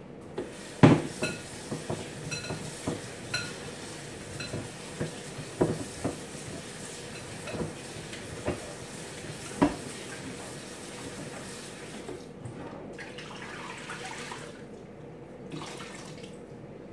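Metal kitchenware clanking: pots, lids and utensils knocked together a dozen or so times over the first ten seconds, several knocks ringing briefly. Then a few seconds of running water from a tap, starting about twelve seconds in.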